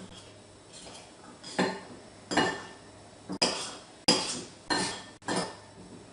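A metal fork clinking and scraping against a plate or dish about six times in quick succession.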